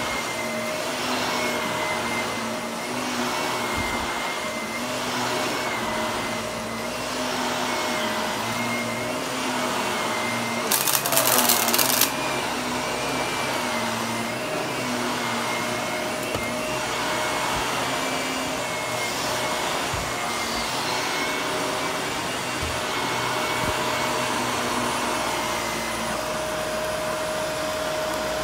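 Shark Navigator upright vacuum running on carpet, its motor whine steady while the suction noise swells and eases as it is pushed back and forth. About ten seconds in, a loud crunching crackle lasts a second or so as debris is sucked up.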